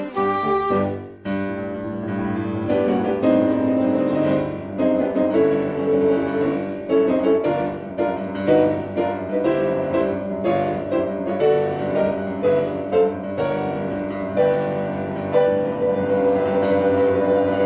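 Piano music, with many notes struck in quick succession over held chords.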